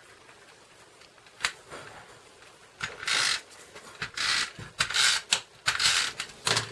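Hand-held tape-runner adhesive being run over cardstock pieces: a single click about one and a half seconds in, then several short scratchy strokes in quick succession.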